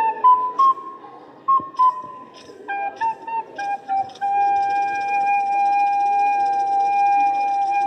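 A solo flute playing a slow melody: a few short notes, a softer stretch, then a few more short notes before it settles into one long held note about four seconds in.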